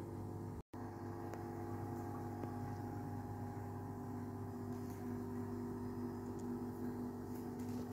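A steady low hum made of several steady tones, with a brief dropout just under a second in.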